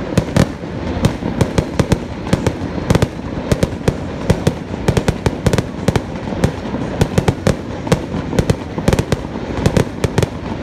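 Aerial fireworks going off in quick succession: a dense string of sharp bangs and cracks, several a second, over a continuous crackling rumble.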